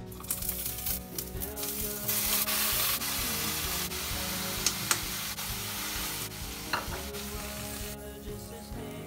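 Leafy greens sizzling as they are stir-fried in hot oil in a frying pan. The sizzle grows louder about two seconds in and dies down near the end, with a few sharp clicks in the middle.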